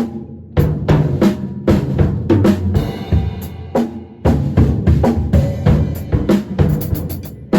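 Drum kit played in phrases of quick bass drum and snare strokes, with short breaks between phrases just after the start and around four seconds in.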